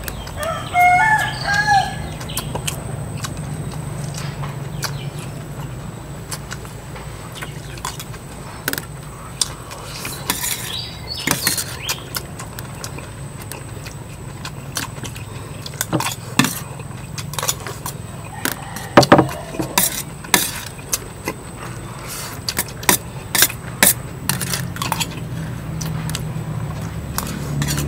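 A rooster crows once near the start, one call with a rising then falling pitch. Through the rest there are scattered sharp clicks and knocks, the loudest about two-thirds of the way in, over a steady low hum.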